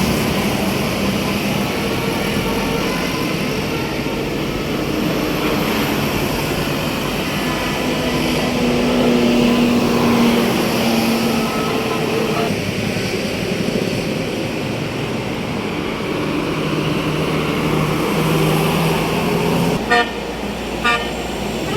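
Tour buses passing with engines running while their Basuri multi-tone "telolet" horns play held melodic notes, ending in a run of short clipped horn notes.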